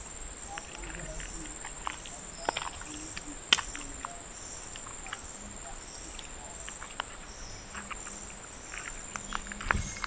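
Forest insects shrilling steadily at a high pitch, with a softer pulsing call repeating every half second or so. Scattered light clicks of footsteps on a leaf-littered dirt trail.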